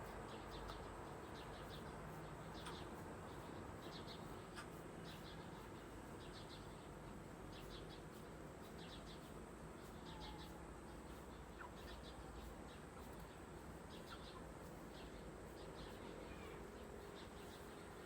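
Faint outdoor ambience of insects chirping: short trains of high chirps about every second, over a steady thin high tone.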